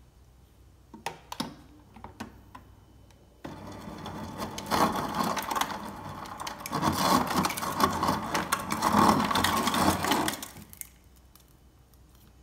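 Refrigerator door ice dispenser running, its motor turning while ice clatters rapidly into a cup. It starts about three and a half seconds in, after a few light knocks of the cup, and stops suddenly about two seconds before the end.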